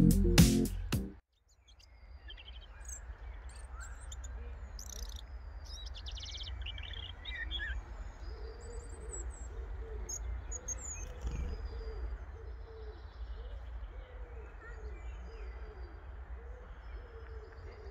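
Woodland birds singing, with high chirping and warbling phrases and, in the second half, a run of low repeated cooing calls, over a steady low rumble. Background music cuts off about a second in.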